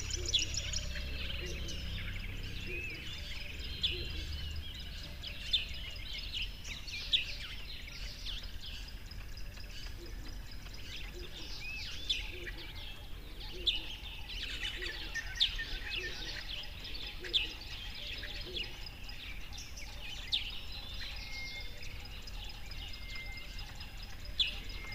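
Several birds chirping and calling, with short, sharp chirps standing out every couple of seconds over a steady background hiss.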